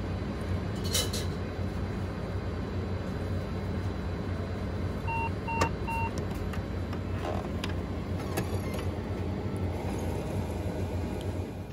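Convenience-store self-serve coffee machine running with a steady hum and hiss as it pours hot coffee into a paper cup. About five seconds in it gives three short beeps.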